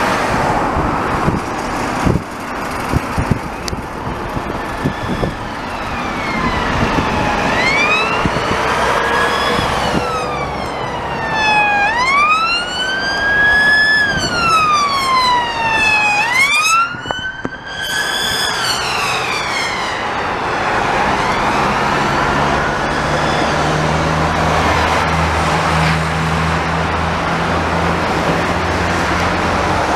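Police car siren wailing in slow rising and falling sweeps over road traffic noise, loudest midway, then fading out. It gives way to the low steady drone of a heavy vehicle's engine.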